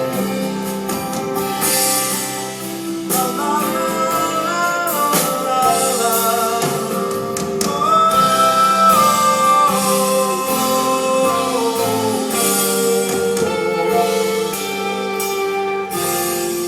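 Live band playing the closing bars of a soft-rock song, with guitar and drums under long, held wordless singing. The sound is a concert recording made from the audience.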